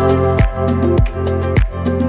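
Background music with a steady beat: a low kick drum about every half second or so under sustained pitched instruments.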